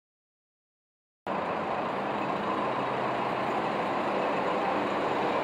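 Dead silence for about the first second, then a steady low diesel engine rumble with an even hiss: a diesel freight train approaching.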